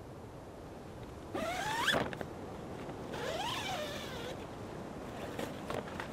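Tent door zipper being unzipped in two long pulls, the first about a second and a half in and the second about three seconds in, each sweeping up and down in pitch. A few light clicks and rustles follow near the end.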